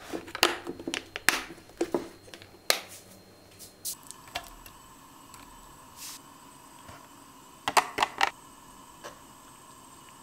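Plastic clicks and clatter of a clip-lock lid being handled on a glass food container, then a quick cluster of metal tongs tapping against a frying pan about eight seconds in.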